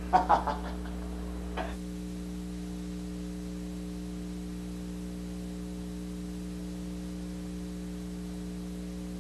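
Steady electrical mains hum on the videotape soundtrack: a low buzz made of several steady stacked tones, with no other sound over it. A few brief fragments of a man's voice are heard in the first second or two.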